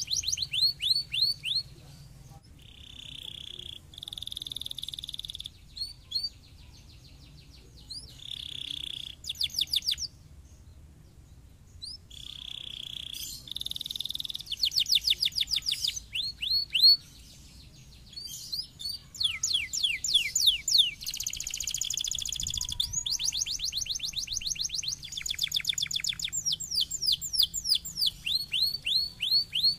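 Domestic canary singing: rapid trills of quick repeated high sweeping notes alternating with buzzy rolls and held tones, broken by a few short pauses.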